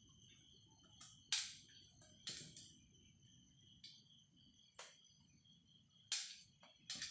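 Stainless-steel ladle knocking lightly against a steel plate and the rim of the batter pot while thick ragi idli batter is ladled in: about six short, faint clinks at irregular intervals.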